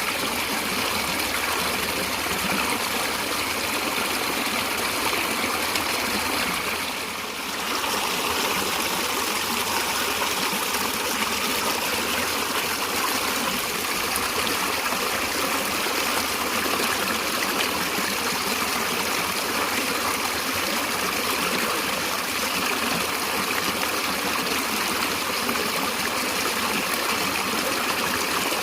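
Natural stream water running steadily over rocks, with trickling and gurgling, dipping briefly about seven seconds in.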